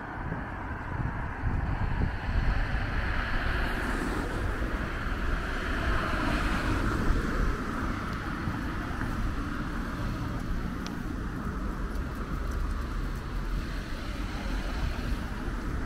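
A car passing along the street, its tyre and engine noise swelling for a few seconds and then fading, over a steady rumble of wind buffeting the microphone.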